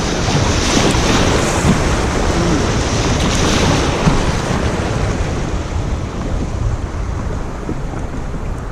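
Wind buffeting the microphone over open water: a loud, rough, fluctuating rush with a heavy low rumble.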